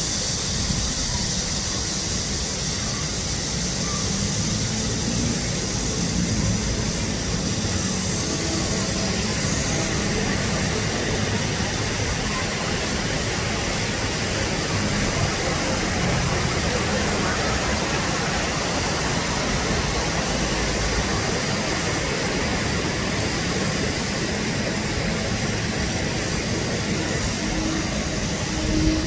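Steady rushing noise of an RC tugboat's brushed electric motor and propeller running as it cruises, mixed with the wash of river water.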